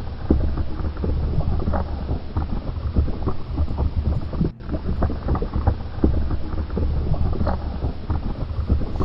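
Low rumbling with dense crackling, bubbling sounds for a baking-soda-and-vinegar volcano eruption. It cuts out sharply for an instant about halfway through, in the way of a looped eruption sound effect.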